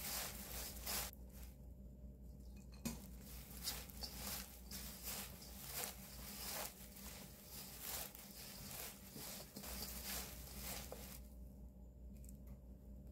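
Dried laver (gim) being handled and crumbled: soft, crisp rustling and crackling in irregular strokes, with two short pauses, over a faint steady hum.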